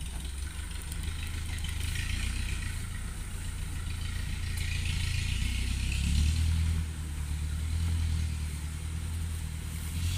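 Engine of a 4x4 loaded with oil palm fruit bunches running under load in rough grass, a steady low drone that swells about six seconds in and eases a second later.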